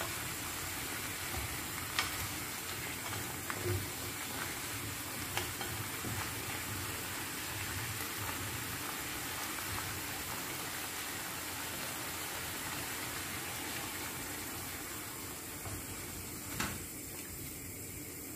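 Chicken breast and carrot chunks sizzling in oil in a frying pan while a wooden spoon stirs them, knocking against the pan now and then. The sizzle thins out near the end.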